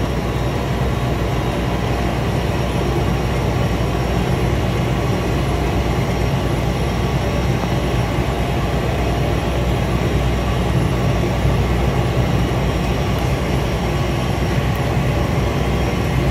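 Cessna 208 Caravan's single Pratt & Whitney PT6A turboprop engine and propeller running steadily at taxi power, heard from inside the cockpit: a steady low drone with a thin high whine over it.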